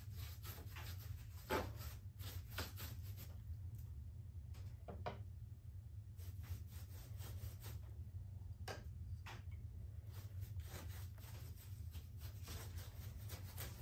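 Stain being worked onto rough plaster rock with a gloved hand and applicator: irregular scratchy rubbing strokes, the loudest about a second and a half in, over a steady low hum.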